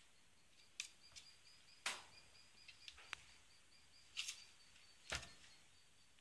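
Scattered light taps and clicks as a cat's claws and a plush catnip toy knock against a wooden slatted table, with a faint, rapid, high chirping trill in the background.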